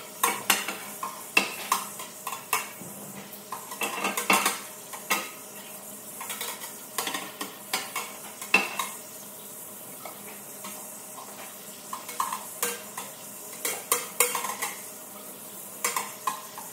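Water running from a sink tap while a flexible 3D-printer build plate is scrubbed under it, with frequent knocks and clatter as the plate bumps the sink and faucet.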